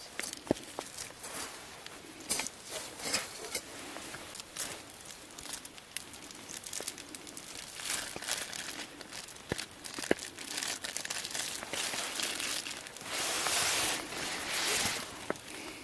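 Packaging crinkling and rustling as it is handled, with a few sharp clicks; the crinkling is loudest and densest near the end.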